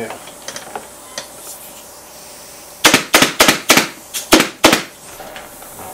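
A staple gun firing about six staples in quick succession, fastening jute webbing to a chair seat frame. The sharp shots come in under two seconds, starting about three seconds in, after a few faint handling clicks.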